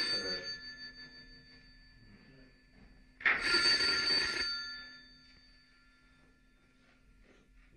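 A bell ringing: a ring already under way fades out in the first second, and a second ring of about a second and a half starts about three seconds in, its tone dying away over the following second. The rings come about four seconds apart.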